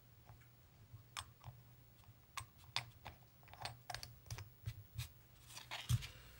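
Faint, irregular small clicks and ticks of a screw cap being turned on an ink bottle, then a soft knock shortly before the end as the bottle is moved.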